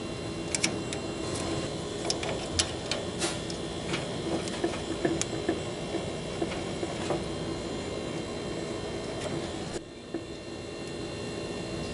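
Irregular small clicks and taps of a plastic-and-brass solenoid water valve and its tube fitting being handled and worked with pliers, over a steady background hum. The hum drops suddenly near the end.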